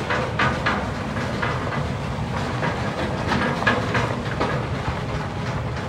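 Carts driving over a bumpy dirt road with a steady low rumble, and a steel transport cage on its trailer rattling and clattering irregularly over the bumps.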